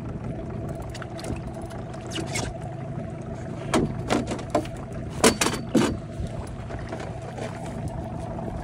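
Steady hum of an idling outboard motor on a small aluminium boat. A cluster of short, sharp sounds comes about four seconds in and again between five and six seconds.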